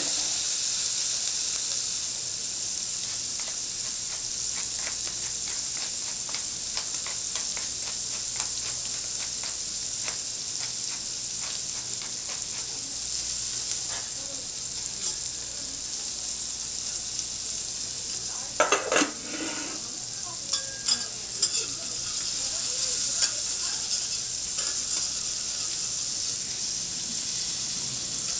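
Beef steak sizzling steadily on a hot iron teppanyaki griddle, with quick ticks and scrapes of metal utensils on the plate and a louder scrape about two-thirds of the way through.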